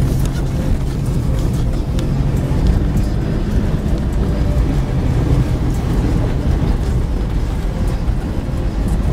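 A 4x4's engine and drivetrain droning steadily, heard from inside the cab while it drives over a snow-covered rutted track, with scattered small clicks and knocks.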